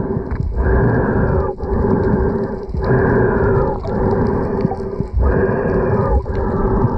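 Underwater rumble and rush of water around a diver's camera, coming in surges about a second long with short breaks, over a steady hum.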